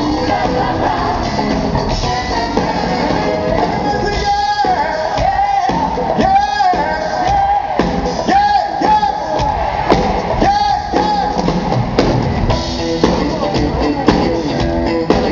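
Live soul band playing, with drums, guitar and a horn section; a lead voice sings long held, wavering notes through the middle.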